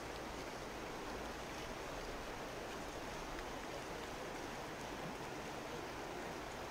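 Steady rush of a shallow, rocky river flowing over gravel.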